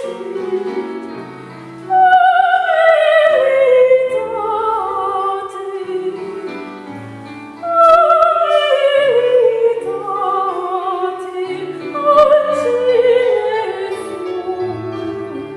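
Operatic singing with a wide vibrato over piano accompaniment. The voice sings falling phrases, each starting high and stepping down, with strong entries about two seconds in and again about eight seconds in.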